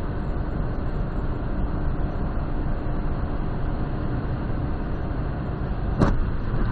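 Steady road and wind noise from a car cruising at highway speed, about 165 km/h, heard from inside. A single sharp knock about six seconds in.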